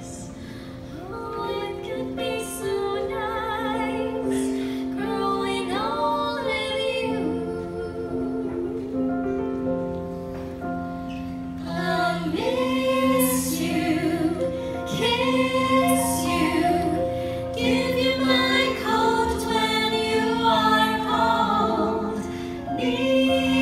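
A small group of women singing together in harmony, accompanied by a keyboard holding sustained chords. The singing grows louder about halfway through.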